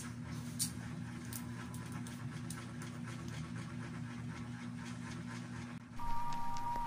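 Steady low room hum with a few faint ticks of small objects being handled. About six seconds in, background music starts with a held high note.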